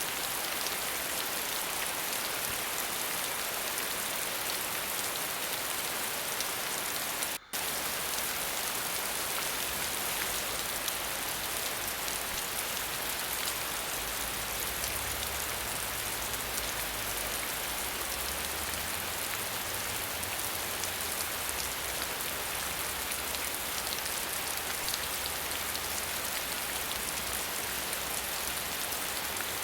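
Waterfall: a steady, dense hiss of falling water, strongest in the highs, that cuts out for an instant about seven seconds in; a faint low rumble joins from about ten seconds in.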